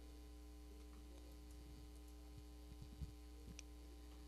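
Near silence: a steady low electrical hum, with a few faint short clicks in the second half.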